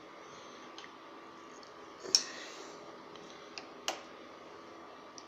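Light clicks and knocks of small metal parts being handled during assembly of a lathe's variator: two sharp clicks about two and four seconds in, with a few fainter ticks, over a faint steady hum.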